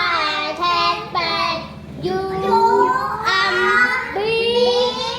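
Children's voices chanting in unison in a sing-song, spelling out a word letter by letter after the teacher.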